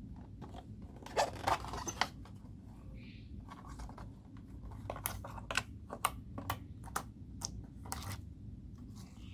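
Hands squishing and stretching homemade slime, making sticky clicks and pops. A cluster comes about a second in, then a run of separate sharp pops from about five to eight and a half seconds, over a low steady background.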